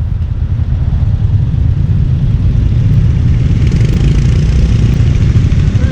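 Royal Enfield Hunter 350's single-cylinder four-stroke engine running, a steady low exhaust note.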